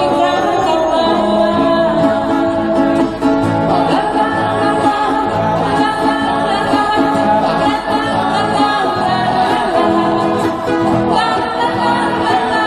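Live music: singing with acoustic guitar accompaniment.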